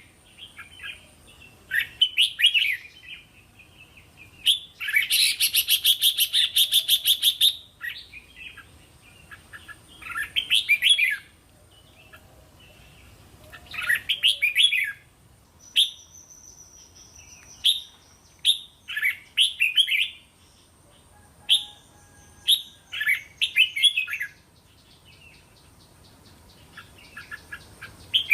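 Red-whiskered bulbul singing short, bright warbling phrases again and again, with a long, fast rattling chatter about five seconds in.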